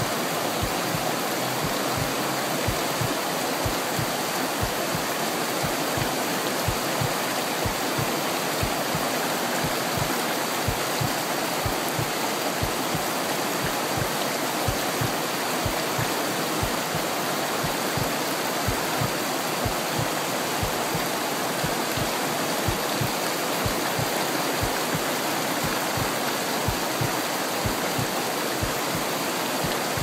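A small rocky mountain stream rushing and splashing over boulders in a small cascade, in one steady, unbroken flow.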